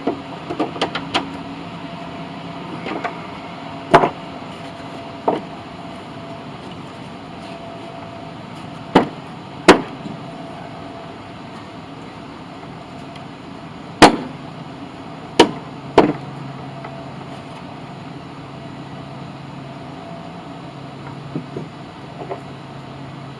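Scattered sharp metallic knocks and clicks from hand tools and metal parts as bolts are snugged up on a mower deck, the loudest about 4 and 14 seconds in, over a steady low hum.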